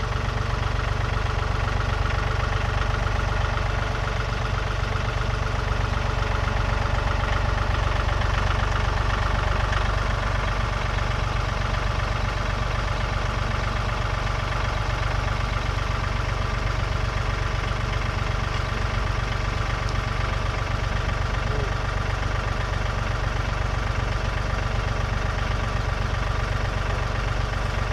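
Heavy-equipment engine running steadily, with a deep low rumble and no breaks.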